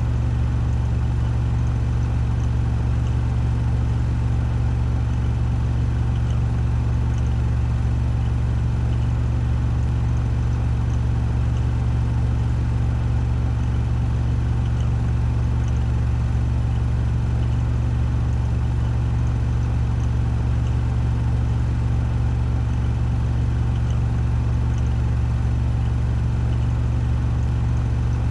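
Washing machine in its 1400 rpm spin cycle, drum spinning at full speed with a steady, deep hum.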